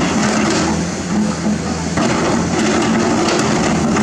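Komatsu PC210 excavator's six-cylinder diesel engine running steadily under working load, with a few light knocks about three seconds in.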